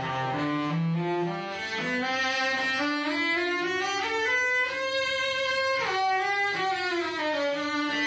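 Cello playing a slow bowed melody in long sustained notes. The line climbs step by step to a high held note near the middle, then steps back down.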